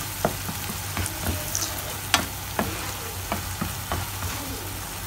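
Blended spice paste of shallots, garlic and dried shrimp sizzling in hot oil in a nonstick frying pan, stirred with a spatula that clicks against the pan about twice a second.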